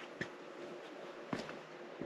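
A hiker's footsteps on rocky ground, two steps about a second apart.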